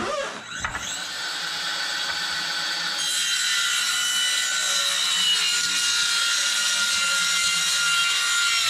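Handheld circular saw running and cutting through a thin plywood sheet, a steady saw whine that starts about a second in and grows fuller as the blade works through the cut.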